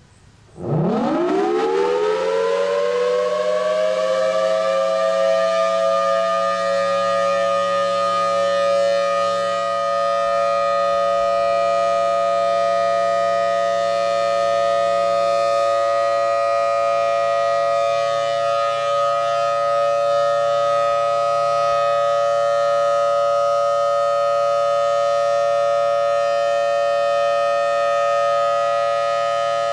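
Federal Thunderbolt 1003 siren winding up on full alert: a fast-rising wail starts about a second in and settles within a few seconds into a loud, steady chord. Its rotator is broken, so the horn stays fixed and the sound holds level instead of swelling and fading as it would if the horn turned.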